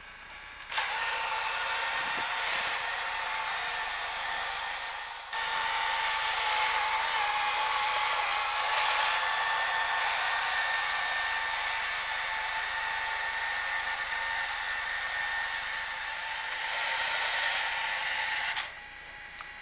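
Small electric drive motor and gears of a vintage Nikko radio-controlled truck whining steadily as it runs. It starts about a second in, dips briefly about five seconds in, and stops near the end.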